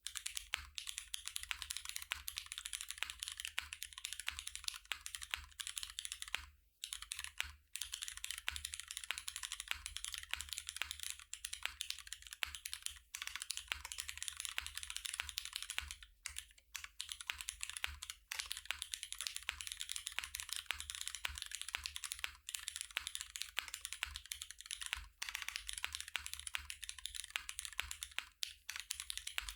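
Cloudline V2 custom mechanical keyboard being typed on rapidly, a clacky stream of keystrokes broken by a few brief pauses.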